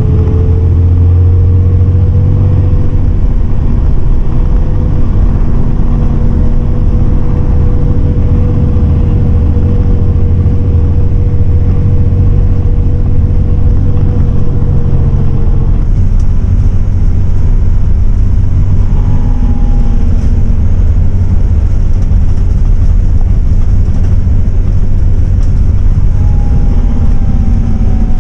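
MAN 18.350 bus heard from inside the cabin while it drives: steady, loud engine and road rumble. A steady whine runs through the first half and stops about halfway, and near the end a short whine falls in pitch.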